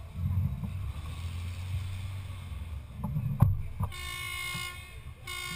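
A car horn sounds from about four seconds in, breaks off briefly and sounds again near the end, over a steady low engine rumble. A single sharp knock comes just before the horn.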